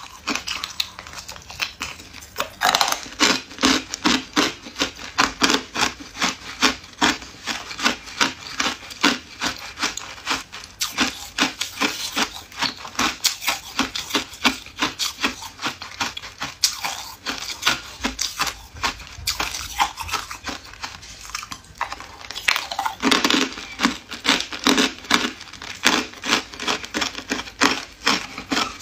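Hard clear ice cubes being bitten straight out of a silicone tray and chewed, close to the microphone: a dense run of sharp crunches, several a second.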